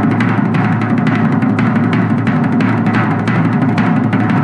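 Drum kit played in a fast, continuous run of rapid strokes, held at an even loudness throughout.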